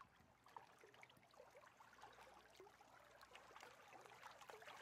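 Near silence, with faint water trickling and lapping in small irregular splashes.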